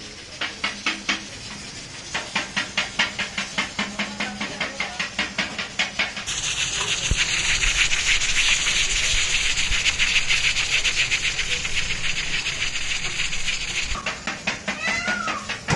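Large pressure cooker venting steam through its weighted valve: the weight jiggles out rapid rhythmic puffs, about five a second. About six seconds in it gives way to a steady loud hiss of escaping steam. Near the end it returns to puffing.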